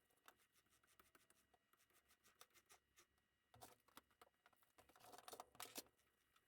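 Near silence, with faint scattered clicks and two short stretches of soft rustling and scraping, the louder one about five seconds in.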